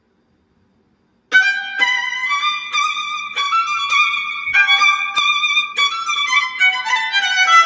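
Solo violin comes in about a second in, playing a quick melody of separate bowed notes high in its range, some with vibrato.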